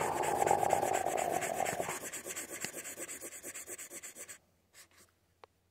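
Sharpie marker's felt tip scrubbing rapidly back and forth on paper in quick scratchy strokes. The strokes grow quieter after about two seconds and stop about four seconds in, leaving only a few faint ticks.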